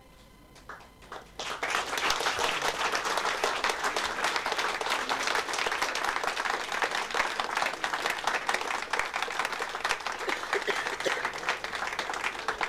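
Audience applauding: a few scattered claps, then full, steady applause from about a second and a half in.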